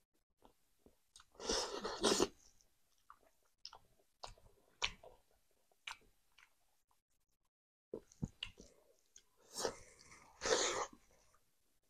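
A person eating rice and smoked pork curry by hand: wet chewing with short lip and mouth clicks, and two louder noisy bursts, one about a second and a half in and one near the end, as handfuls go into the mouth.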